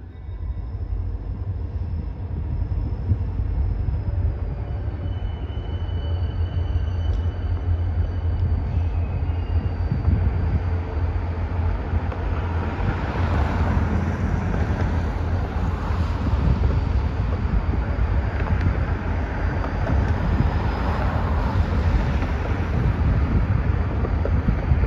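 Wheeling & Lake Erie EMD SD40-2 and SD40-3 two-stroke diesel locomotives pulling a freight train out of a yard: a loud, steady low rumble that grows fuller about halfway through.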